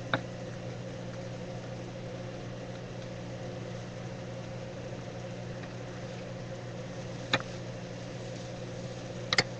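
Steady low hum with a faint hiss as food fries in a pan on the stove, broken by a spatula knocking sharply against the pan: once at the start, once about seven seconds in, and twice in quick succession near the end.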